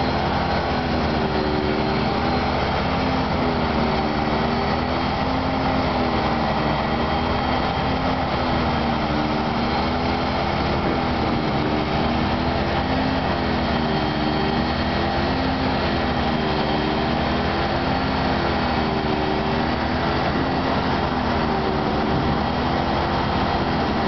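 Fire engines' diesel motors running steadily, with a tone in the engine sound that wavers up and down about every two seconds.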